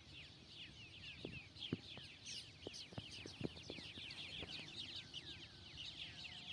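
Many small birds chirping at once, a faint, dense, continuous stream of short downward-sliding chirps, with a few soft clicks scattered through it.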